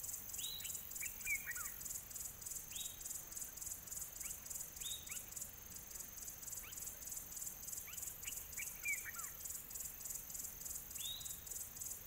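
Insects chirring in a steady, rapid high pulse, with a few short falling bird chirps every couple of seconds.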